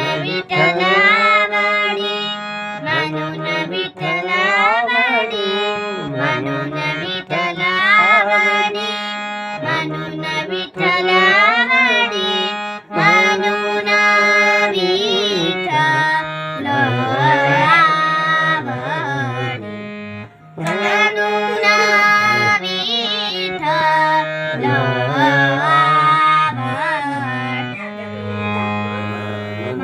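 Harmonium playing a sustained drone and chords while a voice sings a Marathi devotional abhang in a wavering, ornamented melody, with a brief break about two-thirds of the way through.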